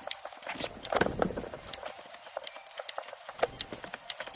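Half-inch ratchet with a 15/16 socket clicking in short, irregular runs as it is swung back and forth to loosen the plastic oil filter housing cap.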